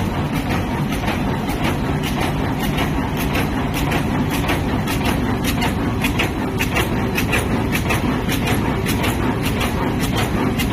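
Envelope bag making machine running: a steady mechanical rumble with a fast, continuous run of clacks, several a second, from its moving parts.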